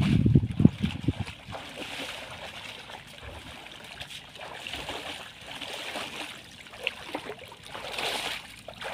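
Water sloshing and splashing as a person wades through knee-deep floodwater dragging a fishing net. Heavy low thumps in the first second, then steadier trickling and splashing, louder again near the end.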